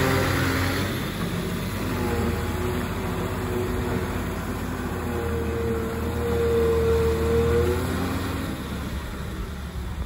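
Ashok Leyland lorry's diesel engine pulling away, laden with mud. The engine note rises between about five and eight seconds in, then fades as the lorry moves off.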